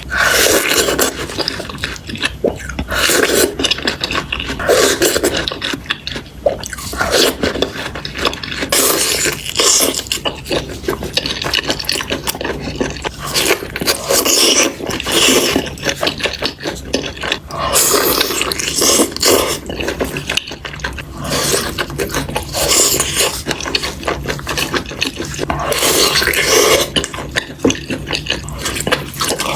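Close-miked eating of pan-fried noodles with wontons: repeated bursts of chewing and slurping, with a utensil scraping against the dish.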